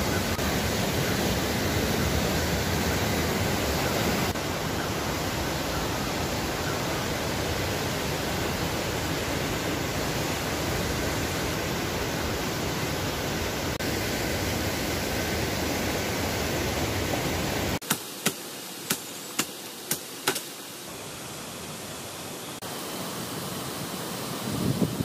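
Steady rushing noise, which drops away about 18 seconds in, where six sharp knocks follow in quick succession.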